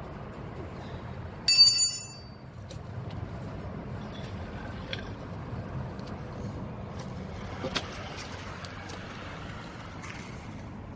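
Steady low rumble of a vehicle engine running in the background, with a short, loud, high-pitched squeal about a second and a half in.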